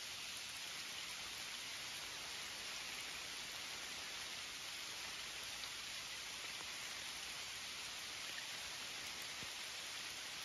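Rain falling steadily on woodland leaves and creek water: an even, unchanging hiss.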